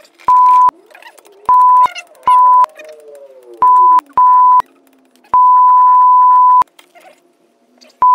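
Censor bleeps: a steady, high beep tone dubbed over swearing, six short beeps and one long beep of over a second, with another starting right at the end.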